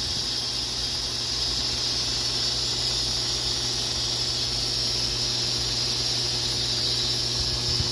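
Steady hiss with a low, even hum underneath, from an aquarium air pump and its aeration running.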